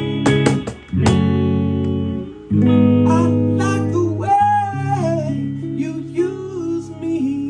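Live acoustic guitar strumming chords, the chords left ringing, with a singing voice, in a reggae song.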